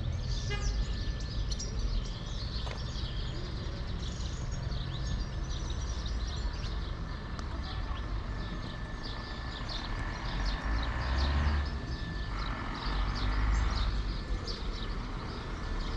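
Small birds chirping over and over in short high notes from the trees, over a steady low outdoor rumble.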